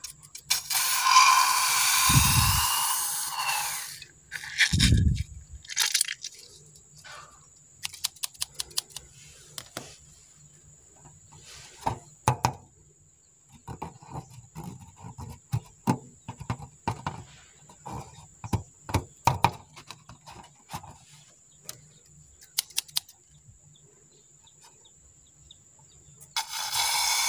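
Handling noises of a slime-filled rubber balloon being snipped with scissors and squeezed: scattered light clicks and crackles. A loud rushing hiss fills the first few seconds and starts again near the end.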